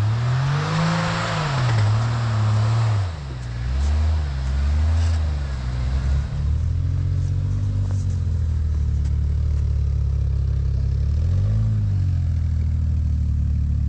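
A 4x4's engine revving up and falling back several times over the first few seconds, with a hiss over it at first. It then runs steadily, with one more brief rise near the end.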